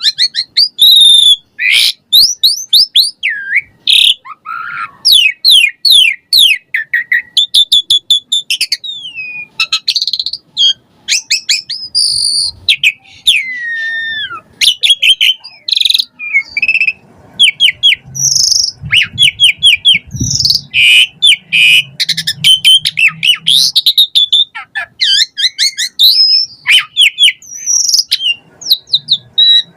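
Jalak suren (Javan pied starling) singing non-stop: a loud, fast, varied medley of whistles, rapid trills, sliding notes and clicks, packed with mimicked phrases.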